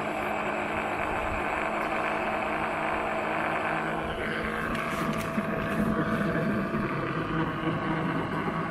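Small electric oil-extraction pump running steadily, drawing the last engine oil out through the dipstick tube. About four seconds in its sound turns rougher as it starts sucking air with the oil: the sump is close to empty.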